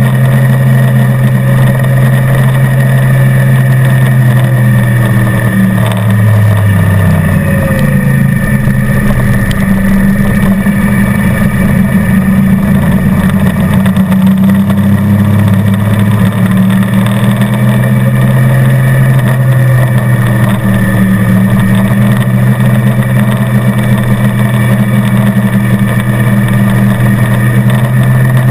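Motorcycle engine running at track speed with a rider and passenger aboard; the engine note drops about six seconds in, stays lower for several seconds, then climbs again from about fifteen seconds in.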